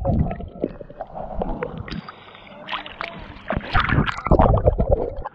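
Sea water splashing and gurgling around a half-submerged action camera as a swimmer strokes through the waves, the lens dipping under the surface and coming back up.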